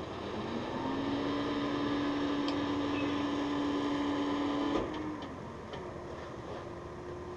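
Rear-loader garbage truck revving up, its engine and hydraulics running at a raised, steady pitch for about four seconds. A clunk comes about five seconds in, and the revs then drop back to a lower, steady running note.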